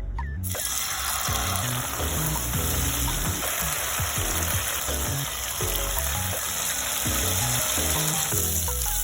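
Food frying in hot oil in a pan: a steady sizzle that starts suddenly about half a second in, under background music.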